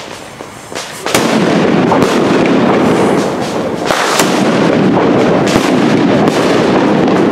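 Preburner of a Funke PS5 'Shark' nitrate firecracker fizzing and crackling loudly. It starts suddenly about a second in and keeps going steadily, with scattered sharp crackles.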